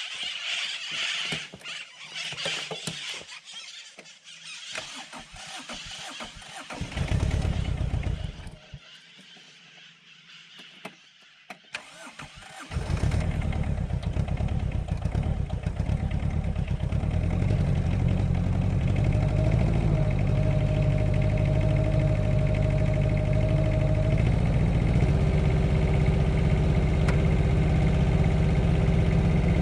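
Komatsu PC-09 micro excavator's small diesel engine is cranked briefly about seven seconds in, then cranked again and catches about halfway through, running steadily from then on. A faint higher whine joins in over the engine in the later part.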